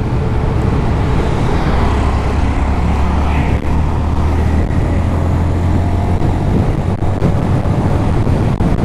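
Honda Monkey 125's single-cylinder four-stroke engine running steadily under way, with road and wind noise.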